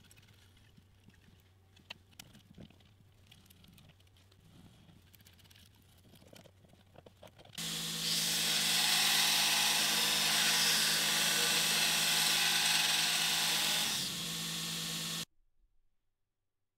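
A belt grinder grinding a steel part: a loud even hiss of the abrasive belt on metal over the steady hum of its motor, starting abruptly about eight seconds in. Near the end the grinding hiss drops away, leaving the motor hum, and then the sound cuts off suddenly. Before the grinding there are only faint clicks and scrapes of a tap being turned by hand into a steel part held in a vise.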